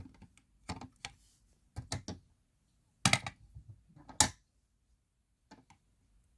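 A Simplex fire alarm pull station clicking and knocking as its handle is tugged at: it is hard to pull. The sharp clicks come irregularly, loudest about three and four seconds in, with a couple of faint ones near the end.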